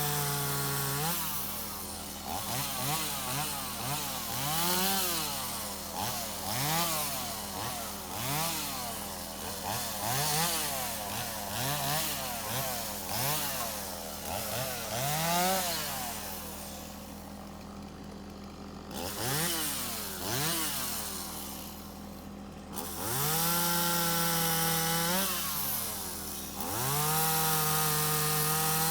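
Gas chainsaw bucking a felled tree into sections, revved up and down in many short throttle bursts over a steady idle, then held at full throttle for two longer cuts near the end.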